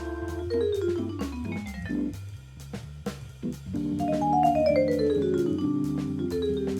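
Jazz solo over bass and drums: a pitched instrument plays a fast descending run of notes at the start and a second, louder descending run from about four seconds in, over a moving bass line and evenly spaced drum and cymbal strokes.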